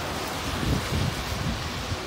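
Steady hiss of falling rain and sleet, with a few low rumbles of wind buffeting the microphone near the middle.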